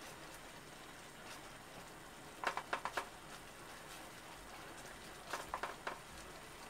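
A utensil stirring curry in a pan, clattering against the pan in two short runs of quick taps a few seconds apart, over a faint steady hiss.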